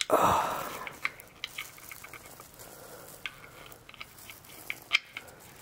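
Hand-handling noises from work in an engine bay: a brief rustle at the start, then faint scattered clicks and taps of small metal fittings, with one sharper click near the end.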